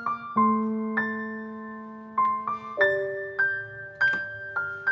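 Slow solo piano music: a melody of single notes, about one every half second, over held low notes, each note ringing on and fading after it is struck.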